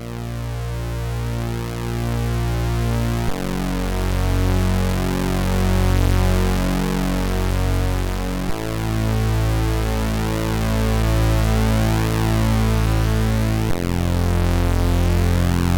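Commodore 64 SID-chip intro music: a held synth bass that changes note every five seconds or so, under fast arpeggiated chords.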